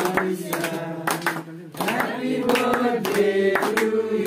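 A birthday song being sung, with several people clapping their hands along in time.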